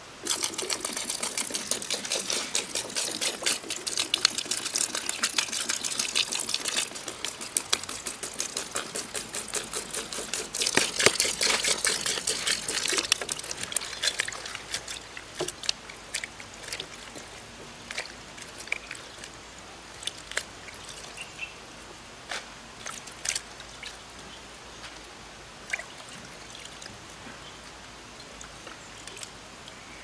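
Water pouring and splashing into a steel bowl of palm weevil grubs in two loud spells, then softer, scattered splashes as hands stir and rinse the grubs.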